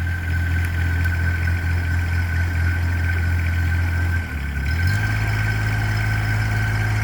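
20-horsepower Kubota diesel engine of a mini excavator idling steadily, with a steady high whine above it. About four and a half seconds in its note dips briefly, then settles at a slightly higher speed.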